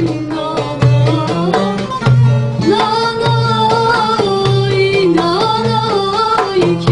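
Turkish folk song played on bağlama (saz) and darbuka. The drum keeps a steady rhythm with a deep stroke a little under once a second, under a held, wavering melody with a voice singing along.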